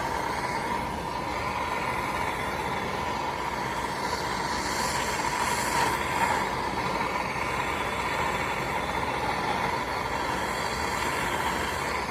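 Handheld gas torch flame hissing steadily as it heats a fluxed copper pipe and fitting to soldering temperature; the joint is not yet hot enough to take solder.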